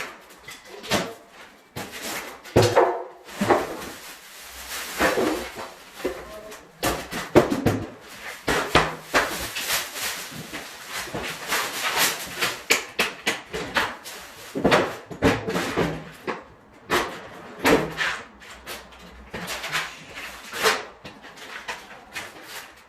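Irregular knocks, clicks and clatter of hands handling parts and tools, several sharp strikes every second or so with pauses between.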